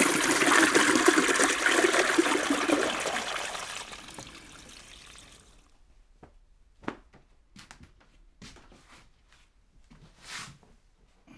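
Toilet flushing: a loud rush of water for about three seconds that drains away and fades out a couple of seconds later. After it, a few faint knocks and soft rustles.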